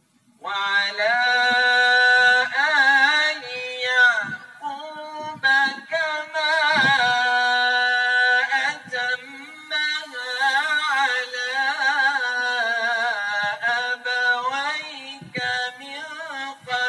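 A man's voice reciting the Quran in a melodic, ornamented chant, in long held phrases broken by short pauses for breath.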